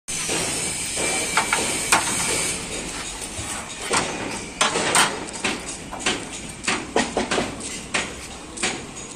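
Steel frame bars knocking and clanking against a steel workbench and panel as they are shifted into place by hand: a few sharp metal knocks early on, then a rapid irregular string of them from about four seconds in.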